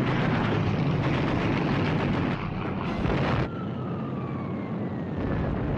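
A dense, loud rumbling din that breaks off about three and a half seconds in, followed by the long whistle of falling aerial bombs, slowly dropping in pitch.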